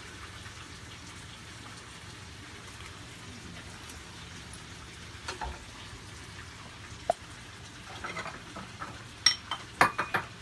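Tuna steaks frying in oil in a pan over lowered heat, a steady sizzle. A few sharp knocks and clatters of kitchen utensils come in the middle and cluster near the end.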